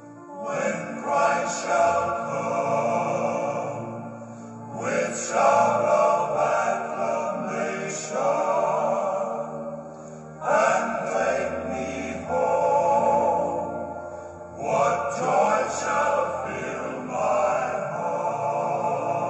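Slow music with singing voices in long held phrases, a new phrase beginning about every four to five seconds.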